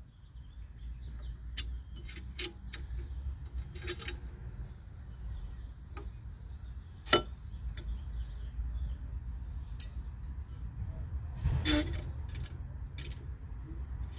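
Scattered metal clicks and clinks of a C-clamp and old brake pad being handled and set against a disc brake caliper, with one sharp click about seven seconds in and a short cluster of clinks near the end. A low steady rumble runs underneath.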